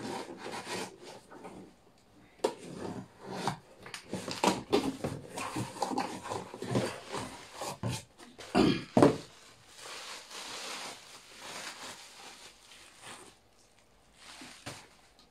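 A delivery parcel being unpacked by hand: irregular rustling, scraping and knocking of the packaging, with two louder scrapes a little past the middle.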